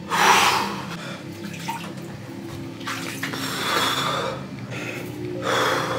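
Bath water sloshing and splashing in a bathtub, in three bursts: right at the start, around three to four seconds in, and near the end.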